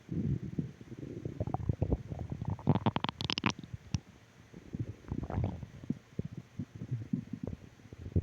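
Human stomach growling and gurgling in irregular bursts, with a louder, higher-pitched gurgle about three seconds in and another just after five seconds, and quieter rumbling in between.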